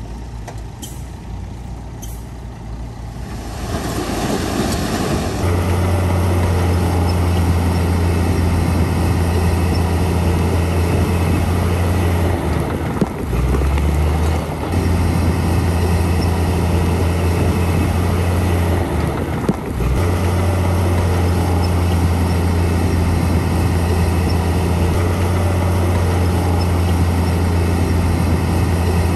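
Heavy diesel earthmoving machine running close by: after a quieter stretch, a loud, steady low engine note sets in about five seconds in, with two brief dips in the engine's pitch partway through.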